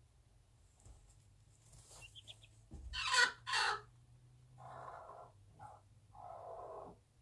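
Chickens calling: two short, loud calls about three seconds in, then three lower, longer clucking calls in the second half.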